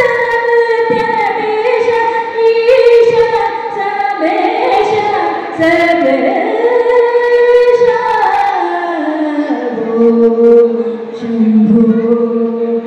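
A woman singing a Carnatic classical devotional song into a microphone, in long gliding melodic phrases with held notes. Near the end she settles on a long, lower held note.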